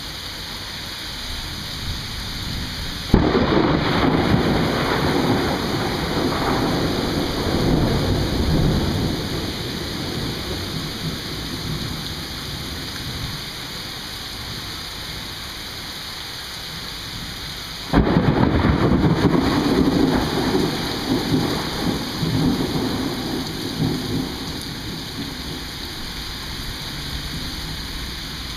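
Steady rain with two sudden bangs of thunder, about three seconds in and again some fifteen seconds later. Each rumbles on for several seconds and slowly fades back into the rain.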